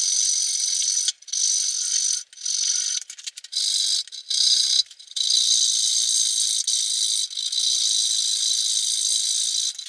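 Knew Concepts fret saw cutting through a thin wooden guitar top, roughing out the waste of an F-hole. It makes a fast, continuous high rasp, with a few short pauses in the first half.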